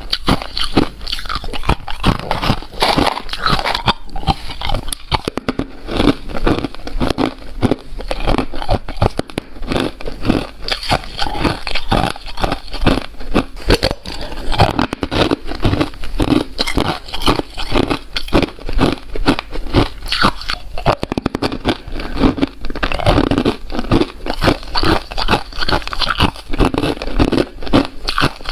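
Crunchy ice being bitten and chewed, a dense run of crisp crunches one after another.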